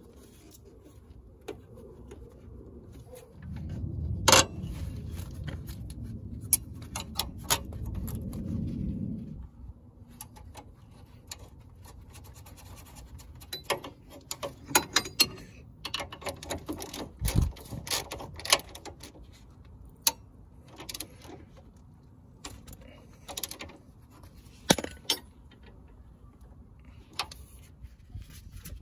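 Scattered small clicks, clinks and knocks of gloved hands fitting cable and hose clips and a connector on a car's front suspension strut. A low rumble runs underneath from about 4 to 9 seconds in.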